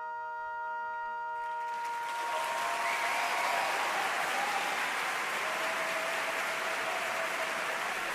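The final held chord of the band rings out and fades, and audience applause swells in about a second in and continues steadily.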